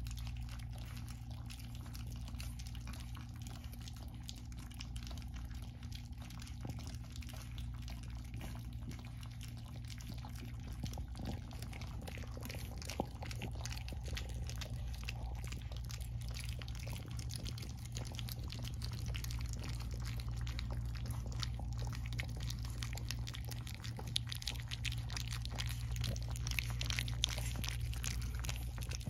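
French bulldog puppies lapping and smacking at wet mash in a stainless steel feeding dish: a constant patter of small wet slurps and clicks, busier toward the end, over a steady low hum.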